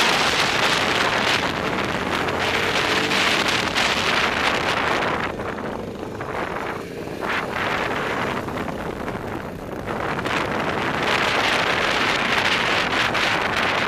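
Heavy wind noise on the microphone of a moving ATV, with the quad's engine running underneath. The wind noise eases for a few seconds around the middle, then comes back.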